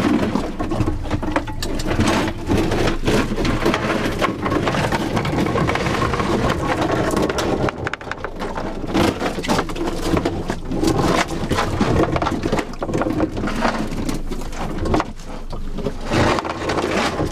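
Steel anchor chain rattling and clanking in quick, uneven knocks as it is paid out by hand over the boat's gunwale, with wind rumbling on the microphone.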